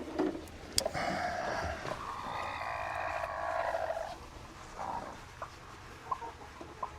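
A broody hen's long, harsh protest call lasting about three seconds, given as eggs are taken from her nest box, followed by a few light taps.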